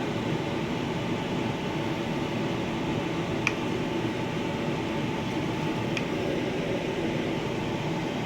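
Steady mechanical hum of room ventilation, fan-like, with two small clicks about three and a half and six seconds in.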